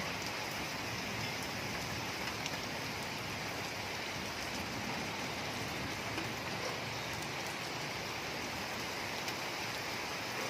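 Heavy rain falling steadily onto a flooded street and standing water: an even, unbroken hiss, with a few faint drip ticks.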